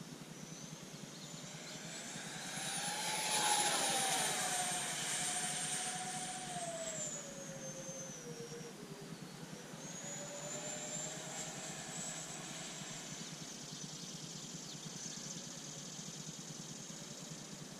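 Electric ducted fans of a Freewing F-14 Tomcat RC jet (twin 64 mm) whining in flight. The whine is loudest about three to four seconds in, drops in pitch over the next few seconds, then returns as a steadier whine.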